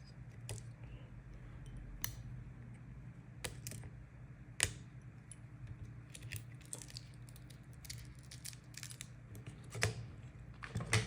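Scattered light clicks and taps of small repair tools against an iPhone's parts during disassembly, a few sharper ones standing out, over a steady low hum.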